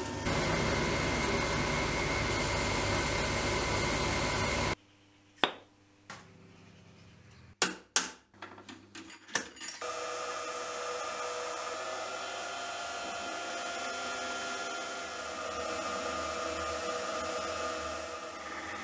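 Metal lathe turning a steel rod, running steadily with a high whine, stops about four and a half seconds in. A few sharp knocks follow. From about ten seconds in, a milling machine spindle runs steadily while it spot-drills and then drills a cross hole through the rod, which is held in a collet block.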